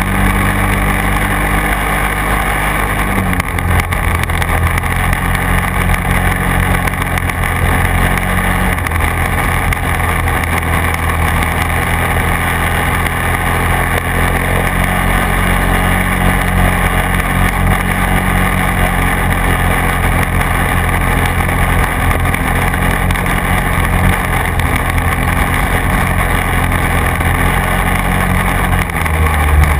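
Quad (ATV) engine running steadily while riding along a field track, its engine note dropping about three seconds in and shifting again near the end.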